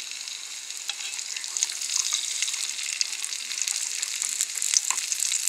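Chopped onions starting to sizzle in hot oil in a nonstick frying pan: a fine, dense crackle that grows steadily louder as the oil heats.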